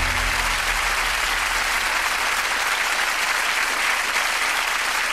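Studio audience applauding steadily, with the tail of the show's theme music fading out under it within the first few seconds.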